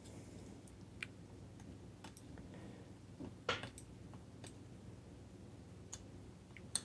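Faint, scattered clicks of metal tweezer tips tapping and prodding small surface-mount resistors and solder joints on a circuit board, about one a second, over a low steady hum. The board is being probed for cracked solder joints.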